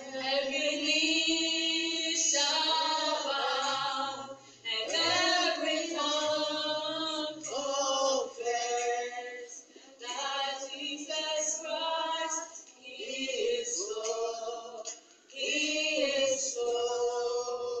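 A group of voices singing together in long held phrases, with short breaks between them.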